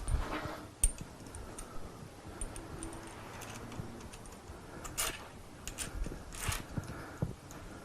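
Light metallic clicks and clinks of small steel parts being handled: lock washers and bolts fitted to the connecting-rod big-end caps of an MGB engine, a few separate clicks with a cluster about five to seven seconds in.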